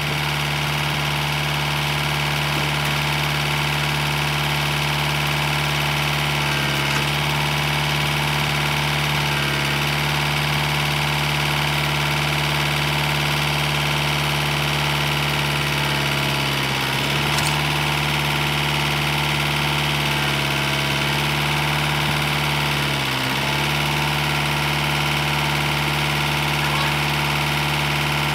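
Tractor engine idling steadily, its speed dipping briefly a few times.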